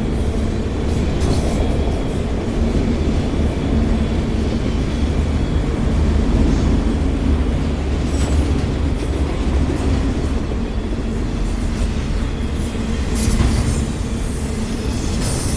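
Freight train cars, mostly autoracks, rolling past: a steady, heavy rumble of steel wheels on rail. A few brief high-pitched wheel squeaks come near the end.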